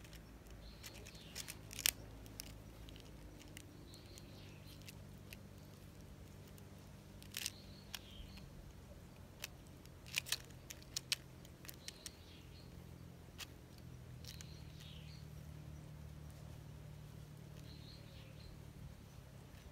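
Quiet outdoor ambience: faint chirps of small birds every second or two over a low steady hum, with scattered sharp clicks and taps, the loudest about two seconds in and a cluster around ten seconds in.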